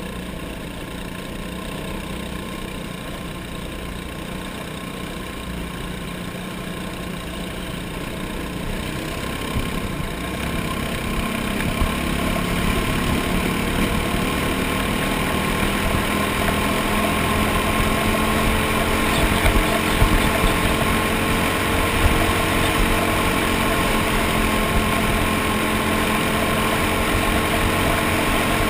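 Racing kart's engine running as the kart laps a dirt oval, heard from on board the kart. The engine note grows louder and clearer from about ten seconds in and stays strong to the end.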